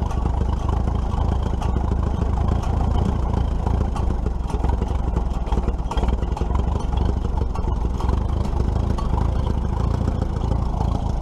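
Antique tractor engine running steadily at idle with its fuel shut off, being left to run its carburetor dry.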